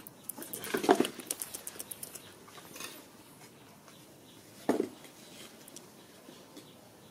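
Short squeaking animal calls, one about a second in and another near five seconds, over a patter of small clicks and scuffles in the first two seconds.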